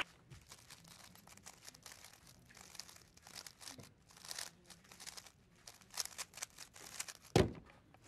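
3x3 speedcube being turned rapidly by hand, a quick irregular patter of soft plastic clicks and clacks. Near the end there is one louder thump as the solve finishes and the cube is set down on the timer mat.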